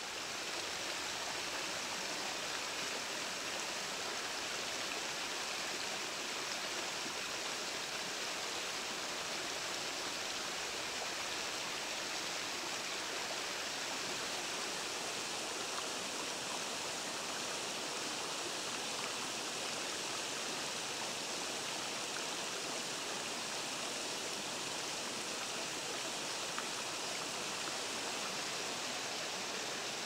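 Shallow mountain stream rushing and splashing over small cascades between rocks: a steady, even rush of water with no let-up.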